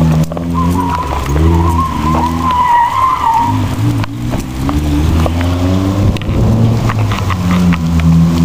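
Drift car engine revving up and down over and over as the car slides, with a wavering tire squeal in the first few seconds.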